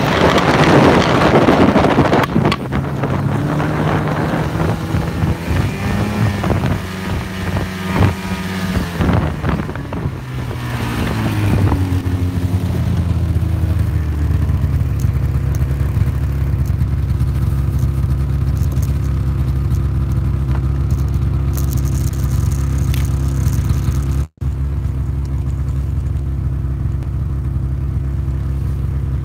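2006 Ski-Doo GSX 600 snowmobile's two-stroke engine: wind rush and the engine running under throttle at first, its pitch rising and falling as the sled slows, then settling into a steady idle about twelve seconds in.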